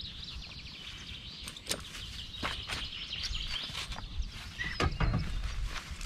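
Small birds chirping and twittering in quick short notes, with a few sharp knocks scattered through, the loudest near the end.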